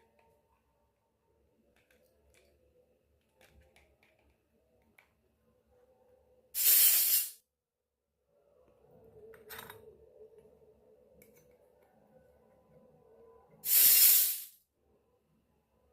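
Two short, loud hissing sprays about seven seconds apart, each lasting under a second, with faint small clicks and taps in between.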